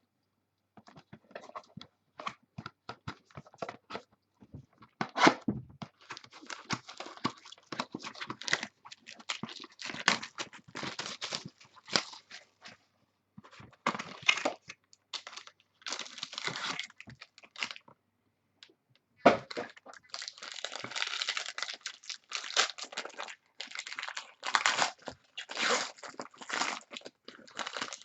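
Plastic packaging crinkling and tearing as a sealed trading-card pack or box is opened, in irregular spurts of crackling with short pauses between them.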